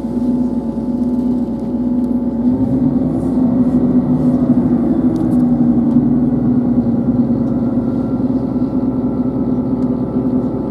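Class 158 diesel multiple unit's underfloor diesel engine idling with a steady hum while the train stands at the platform, heard from inside the carriage. The pitch shifts slightly a few seconds in.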